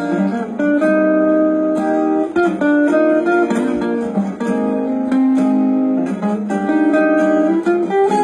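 Instrumental break of a Thai pop ballad, led by acoustic guitar playing picked and strummed chords.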